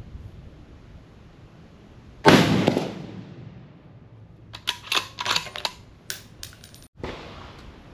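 A single shot from a .308 Tikka bolt-action rifle, a sharp loud crack about two seconds in that rings on and dies away over about half a second. About two seconds after the shot comes a quick run of sharp metallic clicks and clacks.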